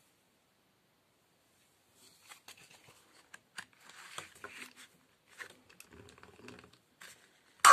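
Hand-cranked paper-strip music box being handled: faint rustling of the punched paper strip and light clicks of the wooden case, starting about two seconds in. Right at the end the crank turns and the comb plucks its first note, a sudden loud ringing tone.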